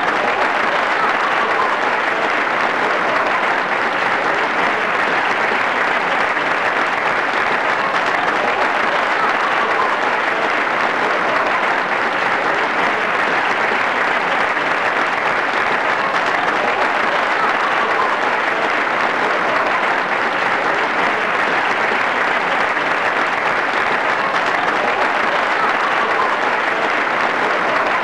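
Steady, unbroken applause from a crowd, an even clapping noise at constant loudness.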